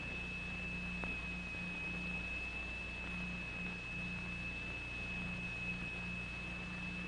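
A single steady high-pitched tone from a steel plate driven into vibration by a crystal attached to it, holding one note while sand and lycopodium powder form a figure on the plate. A low hum lies underneath.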